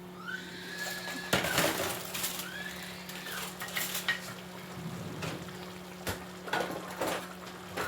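A metal cooking pot and its lid being handled, with knocks, clatter and scraping. Short squeaks sound between the knocks.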